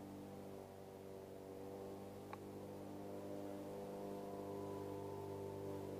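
Faint, steady motor hum made of several tones, with one short click about two seconds in.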